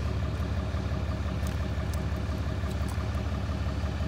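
Tow truck's engine idling steadily, with a few faint clicks over it.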